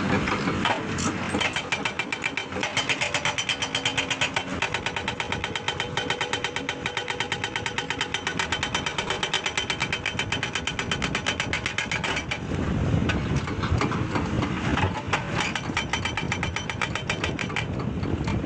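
Heavy construction machinery running, with a fast, even pulsing beat. About twelve seconds in, the pulsing fades into a lower, rougher rumble.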